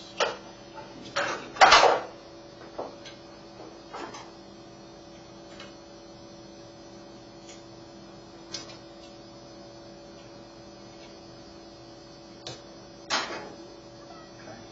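Scattered clicks and knocks of the small metal and plastic parts of a 250-volt plug being handled and fitted together on a workbench, the loudest clack about two seconds in, over a steady low hum.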